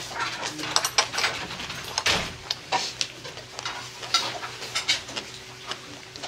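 Close-up eating sounds: chewing and wet mouth sounds, with a metal spoon clinking and scraping in a pot of soft tofu stew (sundubu-jjigae). A louder crackling smack about two seconds in.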